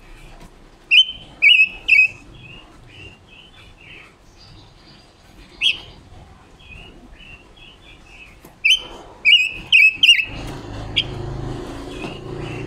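Caged female silver-eared mesia giving short, sharp chirping calls in bursts, with a quick run of calls near the end. A steady low rumble comes in underneath about two seconds before the end.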